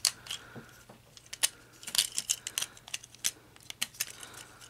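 Hard plastic joints of a Transformers Studio Series Leadfoot action figure clicking as its feet are flipped down and repositioned by hand: a run of small, irregular clicks.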